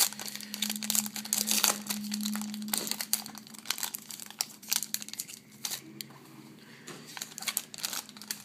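Baseball card pack wrapper being torn open and crinkled by hand: a dense run of crackling rustles for the first few seconds, then sparser crinkles as the cards are handled, over a low steady hum.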